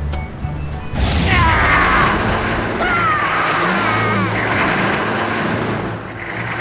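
Background music with a steady bass line, broken about a second in by a sudden loud crash that trails off into a long noisy rumble with short falling whistles.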